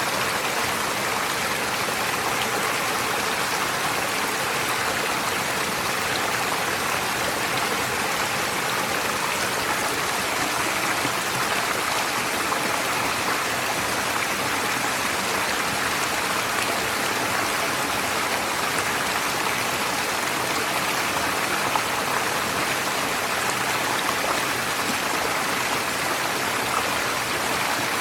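Forest stream flowing and splashing over stones, a steady rush of running water.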